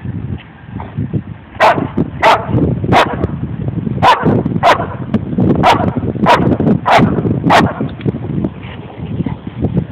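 German Shepherd barking nine times in a steady, evenly spaced series, about one bark every two-thirds of a second, over a low background rumble.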